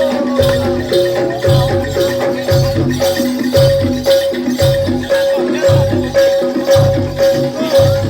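Jaranan gamelan accompaniment: struck metal gong-chime notes repeating in a steady pattern over a regular low drum rhythm, with shaken percussion ticking along.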